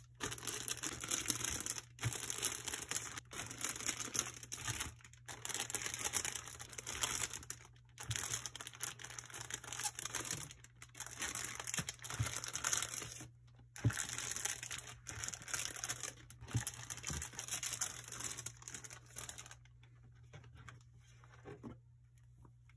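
Plastic bags holding model-kit sprues crinkling and rustling as they are handled and lifted out of a cardboard box. The sound comes in bursts with short pauses and a few light knocks, and it dies down about twenty seconds in.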